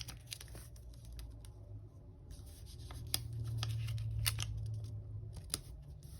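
A planner sticker being peeled up off the paper and pressed back down: a few small scattered ticks and rubs. A low steady hum runs under it.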